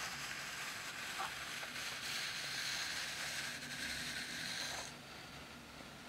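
A steady high hiss with a few faint clicks, stopping fairly abruptly near the end.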